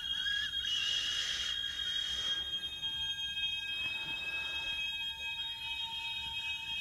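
Electroacoustic free-improvisation music: several piercing high tones held steadily, alarm-like, with a wavering tone at the very start and a hiss of noise from about a second in to past the two-second mark. A lower steady tone comes in about four seconds in.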